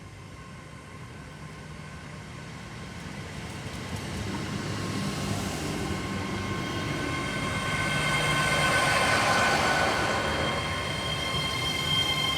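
A train approaching, its sound growing steadily louder: a low rumble under several steady high ringing tones.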